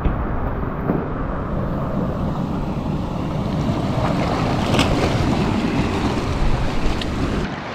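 Sea surf surging and foaming through rocky gullies close by, with wind rumbling on the microphone.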